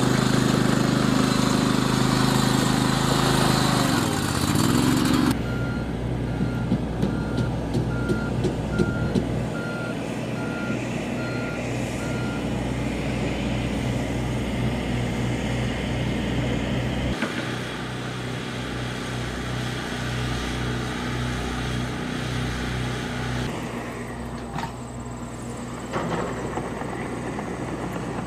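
Heavy diesel engines of a John Deere excavator and articulated dump trucks running, the engine note shifting abruptly a few times. A reversing alarm beeps about once a second for some seven seconds, starting about five seconds in.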